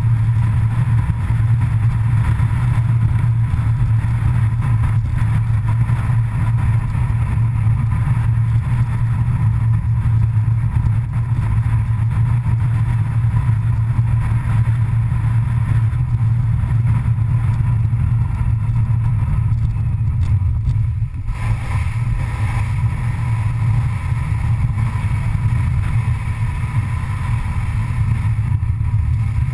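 Car driving at road speed: a steady low rumble of engine, tyre and wind noise, with a brief dip about two-thirds of the way through.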